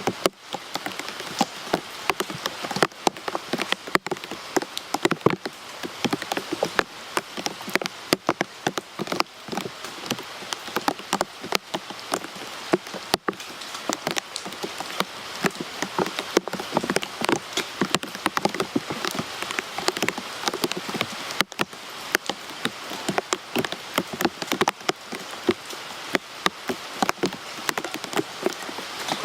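Steady rain falling, with many separate drops striking close by over a continuous patter.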